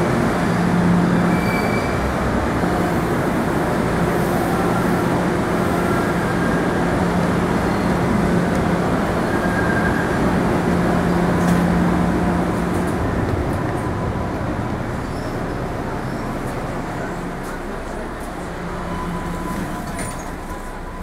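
MBTA Green Line light-rail train heard from inside the car, running with a steady rumble and a low motor hum. About two-thirds of the way through the hum stops and the running noise gradually quietens.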